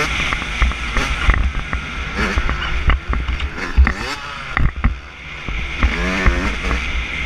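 2016 Yamaha YZ125's 125 cc two-stroke single-cylinder engine revving up and falling off again and again as the dirt bike is ridden along a dirt track, with sharp knocks scattered through it and a low rumble under it.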